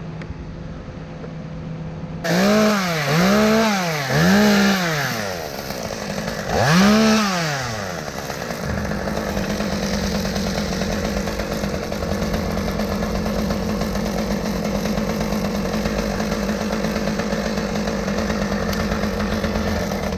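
Stihl M-Tronic two-stroke chainsaw starting about two seconds in, revved up and back down four times, then running steadily. The saw has been running badly, which the owner thinks may need a carburetor rebuild or possibly clutch springs.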